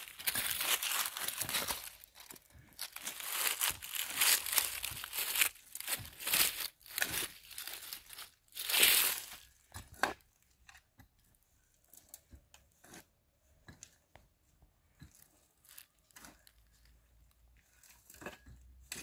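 Irregular crinkling and tearing noises for about ten seconds, then only sparse faint clicks and rustles.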